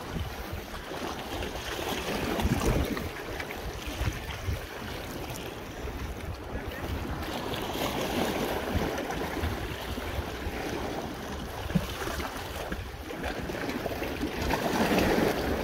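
Sea water lapping and washing against the rocks of a stone breakwater, rising and falling in surges, with wind buffeting the microphone.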